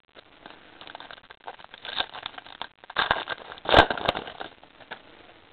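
A 2014-15 Panini Hoops basketball card pack wrapper rustling as it is torn open, with irregular crackly noise and a few sharp rips, loudest about three to four seconds in.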